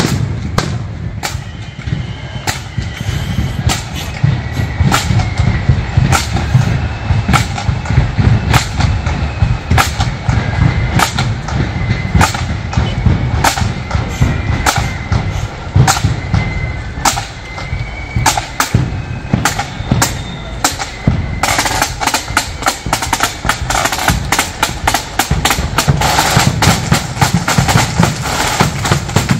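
Marching band playing: a bass drum keeps a steady beat under rapid snare drumming, with a faint melody line above. About twenty seconds in, the snare drumming gets louder and denser.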